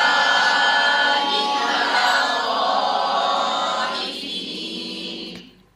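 A group of students reciting a Quranic verse together in a chanted chorus, repeating it after the teacher as a memorisation drill. The many voices fade after about four seconds and stop just before the end.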